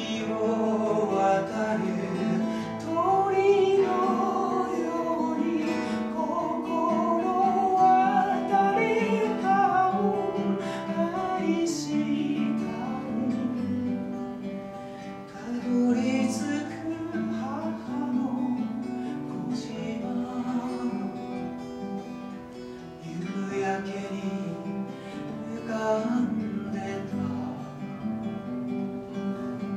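A man singing a slow song while accompanying himself on acoustic guitar.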